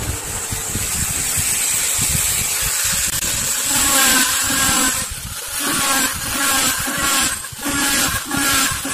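Small handheld electric mini drill running with a steady high whine, its fine bit drilling small holes into PVC pipe. From about halfway in the sound rises and falls in short repeated bouts as the bit is pressed into the plastic again and again.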